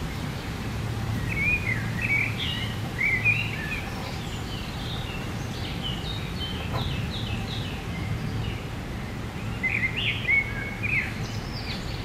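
Wild birds singing in three short bursts of quick chirping, warbling phrases: about a second in, around the middle, and near the end. A steady low background hum runs underneath.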